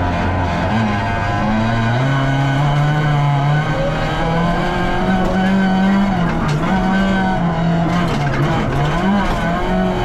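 Rally-prepared VW Polo's engine heard from inside the cabin, running hard on a dirt stage, its revs rising and falling repeatedly through gear changes and corners, over tyre and road noise.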